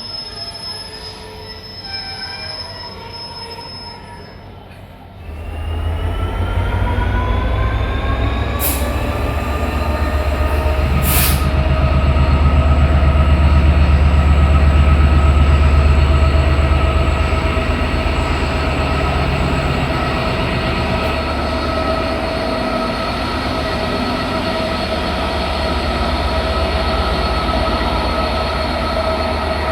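Train at York station: from about five seconds in a loud low rumble sets in, with a whine that rises in pitch and then holds as a steady hum. Two sharp clacks come a few seconds later.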